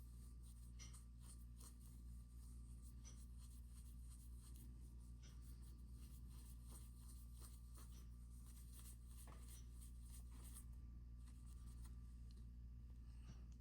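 Near silence: a low steady room hum with faint, scattered small clicks and scratches, as of small parts being handled on a workbench.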